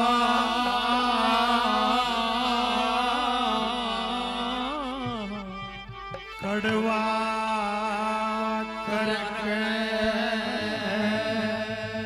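A man singing long, drawn-out melismatic notes into a microphone over a steady instrumental drone, in Indian folk style. The line breaks off about halfway through and then starts again.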